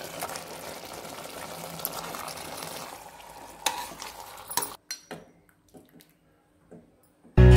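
Steady hiss of a pot of chicken curry cooking, then a few sharp knocks of a spoon as the chicken and potatoes are stirred, followed by near silence. Loud music starts suddenly just before the end.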